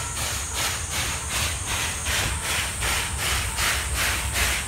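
JNR Class C11 steam tank locomotive (No. 325) approaching under steam, its exhaust chuffing in an even beat of about four a second over a low rumble, growing louder as it nears.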